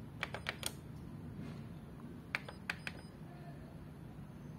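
Keys pressed on a Fuji Xerox DocuCentre-V 2060 photocopier's numeric keypad: two quick runs of about four clicks, nearly two seconds apart, over a low steady hum.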